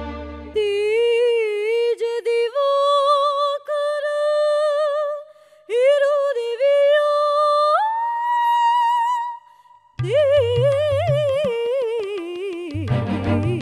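Operatic soprano singing an aria, at first alone: long vibrato-laden notes that climb in steps to a high held note. After a short break about ten seconds in, she resumes with a wavering melodic line over a low, pulsing rhythmic accompaniment.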